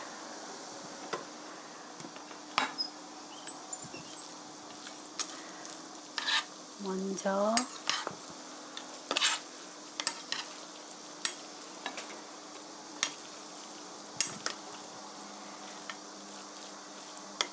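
A wooden spoon and a metal spoon stirring and lifting braised chicken, glass noodles and vegetables in a stainless steel pot, with irregular sharp clinks of metal against the pot. Under them the braise gives a steady faint sizzle.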